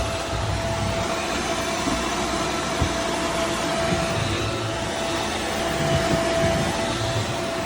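Shark Stratos upright vacuum cleaner running steadily, its motor giving a constant whirring hum with a thin steady tone, and uneven low rumbling as it is worked over the floor.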